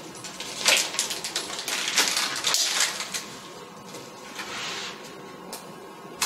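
Rustling and hissing from airway equipment and its plastic packaging being handled, in a quick run of short bursts for about three seconds, then quieter with one more burst a little past four seconds.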